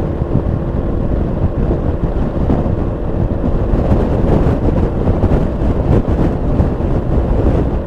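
Wind rushing over the rider's microphone while riding, with the Yamaha XMAX 300 scooter's single-cylinder engine running at a steady cruise underneath.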